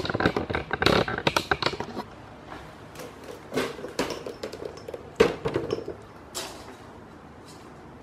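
Handling noise from a tape measure being worked close to the microphone: a quick flurry of rustling and clicks, then a few separate light clicks and knocks.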